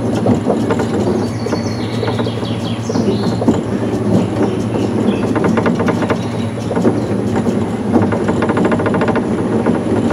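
Small electrically powered monorail ride car running along its elevated track: a steady low hum from the drive, with runs of fast rattling clicks from the wheels on the rail, plainest near the end.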